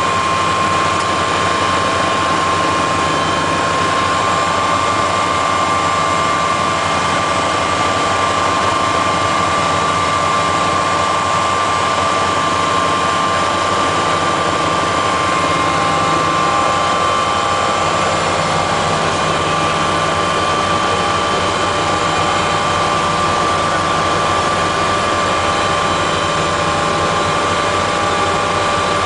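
Cabin noise of a Bell 427 twin-turboshaft helicopter in flight: engines and rotors running steadily, a strong high whine over a dense rushing noise.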